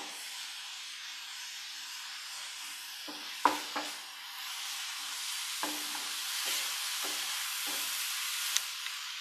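Sliced onions, ginger-garlic and green chillies sizzling in coconut oil in a nonstick frying pan, stirred and scraped with a wooden spatula, frying until the ginger-garlic loses its raw smell. A knock of the spatula on the pan about three and a half seconds in is the loudest sound, followed by several lighter scrapes, and the sizzle grows a little louder from the middle on.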